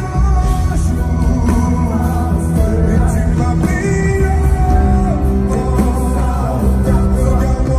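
Live pop-rock band music with a heavy, steady bass line and sustained held notes.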